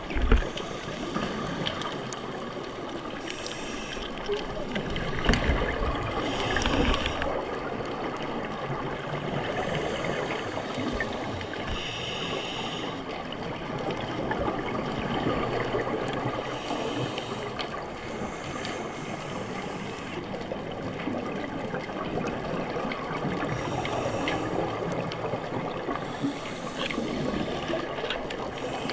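Scuba diver's breathing heard underwater: a short regulator inhale hiss every few seconds and gurgling bursts of exhaled bubbles.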